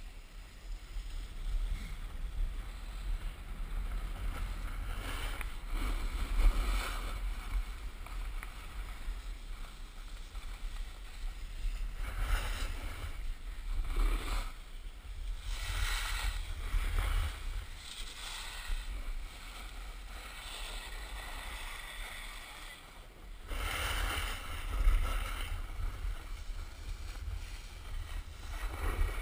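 Wind buffeting the microphone of a helmet-mounted action camera during a downhill ski run, a steady low rumble, with the hiss and scrape of skis carving packed snow swelling in several surges as the skier turns.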